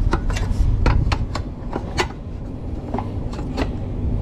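About ten irregular light clicks and knocks as a speed square is set on a board and a circular saw's base plate is slid up against it to line up a cut, over a steady low rumble. The saw is not yet running.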